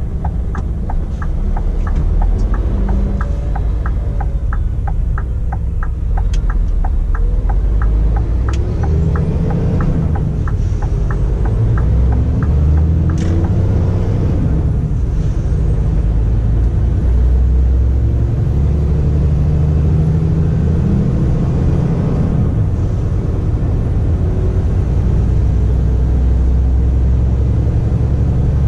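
The Scania R450's diesel engine rumbles low and steadily, getting louder from about ten seconds in. Over it runs an even, rapid ticking, which stops about twelve seconds in.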